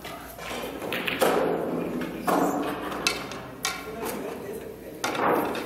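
Pool balls knocking and clacking on a billiard table: about five sharp hits a second or so apart, each ringing briefly in the hall.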